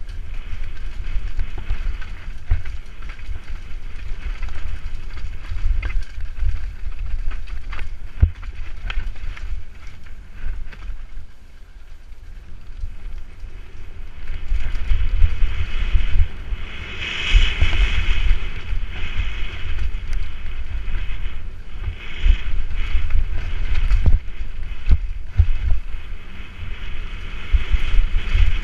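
Wind buffeting the microphone of a helmet camera on a fast mountain-bike descent, with the rattle of a YT Capra Pro's tyres, chain and suspension over a rocky dirt trail and scattered sharp knocks from hits. It eases off briefly near the middle, then turns louder and harsher for the second half.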